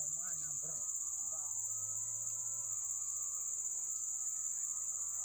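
A steady, high-pitched insect chorus that does not change. Faint voices are heard in the first second.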